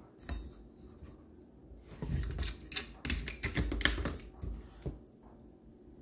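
Hand tool cranked hard on a screw in a Helicoil thread insert in a small engine's cylinder, giving irregular clicks and knocks, thickest in the middle. This is a strain test of the repaired thread, which holds.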